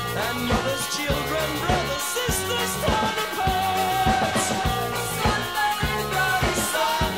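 Background music: a rock-style song with a steady drum beat and singing.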